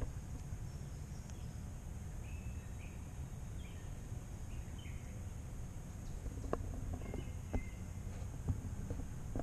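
Woodland ambience: a steady low rumble with short bird chirps every second or so. From about six seconds in, sharp crackles of dry leaf litter being disturbed.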